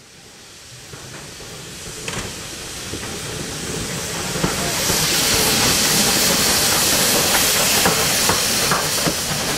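LB&SC E4 class 0-6-2 tank steam locomotive approaching and passing at low speed, with loud steam hissing over a low rumble of the wheels and a few sharp knocks. It grows steadily louder as it nears, and the hiss is strongest in the second half.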